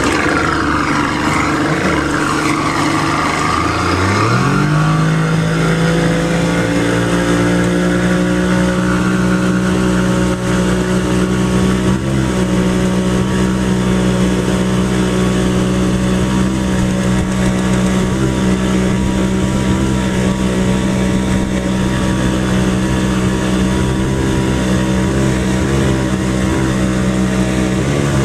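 Watercraft engine accelerating, its pitch rising over the first four seconds or so, then running steady at high speed.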